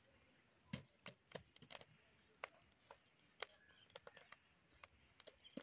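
A smouldering pile of embers being stirred with a thin stick: faint, irregular sharp clicks and crackles, about a dozen in all, coming unevenly.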